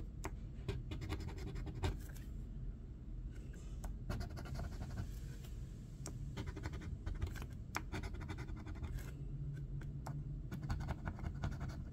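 A metal lottery scratcher coin scraping the coating off a paper scratch-off ticket in many short, quick strokes.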